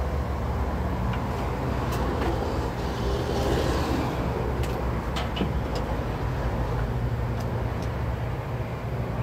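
Honeybees buzzing in a dense cloud around an open hive, a steady drone, with a few sharp knocks and clicks of wooden hive frames being handled about two seconds in and again around the middle.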